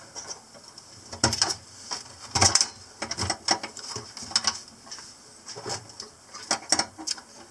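Isotherm refrigeration compressor unit being pushed and slid by hand onto its quick-connect mounting plate: a series of irregular metal clunks, clicks and scrapes, several bunched close together.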